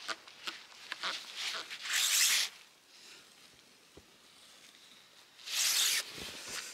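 Handling noises: a quick run of small clicks and rustles, then two short, loud rasps a few seconds apart.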